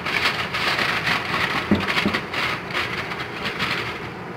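Sheet of aluminium foil being crinkled and pressed around the rim of a steel cooking pot to seal it: a continuous crackling rustle, with a couple of soft knocks near the middle.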